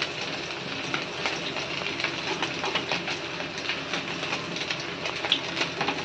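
Leaf fritters deep-frying in hot oil: a steady sizzle with many small crackles and pops.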